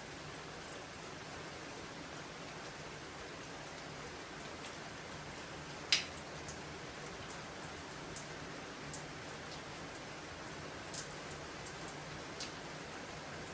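Steady rain falling, with scattered heavier drops tapping close by; one louder drip lands about six seconds in.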